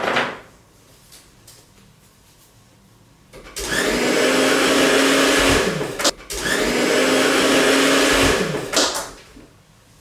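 Hair dryer running, switched on for about two and a half seconds, cut off for a moment, then on again for about as long; each time it cuts off its motor whines down. It is blasting out baby powder packed inside it.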